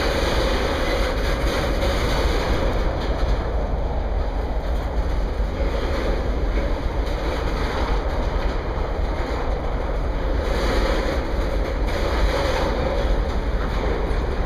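Loaded tank cars of a CSX oil train rolling past, their steel wheels running on the rails in a steady noise.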